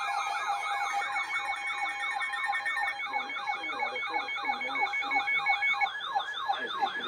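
Several electronic sirens sounding together: fast yelping sweeps several times a second over a higher warble, with a slower low warble joining about three seconds in. A steady tone and a beeping tone under them stop about six seconds in.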